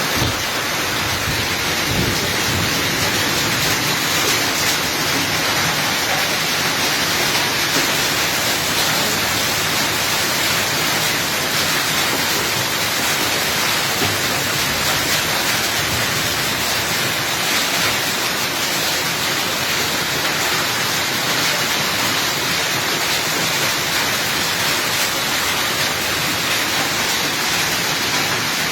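Heavy rain pouring down steadily in a thunderstorm, a loud, even hiss of falling water.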